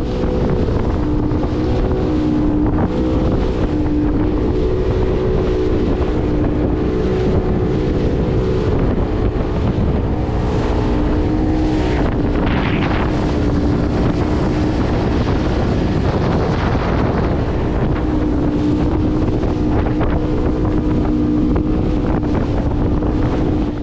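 Outboard motor running steadily at speed, driving a small open fishing boat across a choppy sea, with the rush of water and wind on the microphone.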